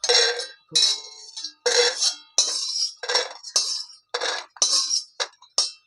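Metal spoon scraping and clinking against a metal cooking pan in about ten quick strokes, each with a brief metallic ring.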